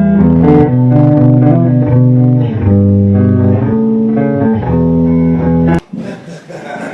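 Loud music played on guitar and bass guitar, with plucked notes changing in a steady pattern; it cuts off suddenly near the end, leaving a quieter noisy rumble.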